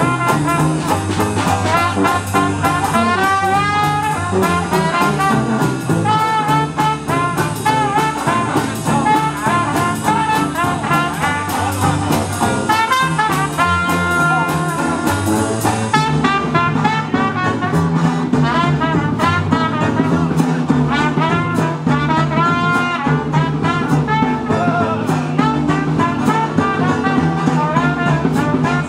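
Traditional jazz band playing an instrumental chorus: trumpet and trombone lines over a tuba and rhythm section with a steady beat.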